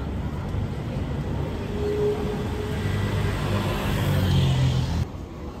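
Low rumble of a vehicle passing along a city street, growing louder over the first few seconds and cutting off abruptly about five seconds in.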